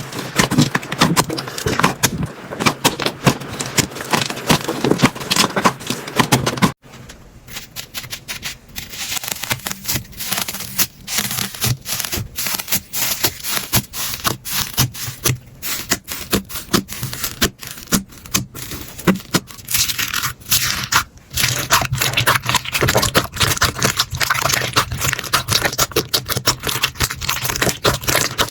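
Slime being squeezed and worked by hand, making dense sticky crackling and popping; the sound breaks off about seven seconds in and a different slime takes over with the same close crackle.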